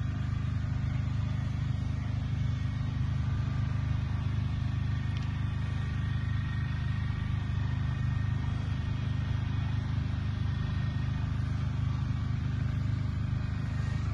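A steady low rumble with a faint hiss above it, unchanging throughout.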